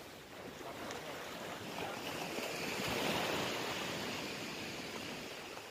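Sea surf: a wave breaking and washing up the beach, swelling to a peak about halfway through and then fading.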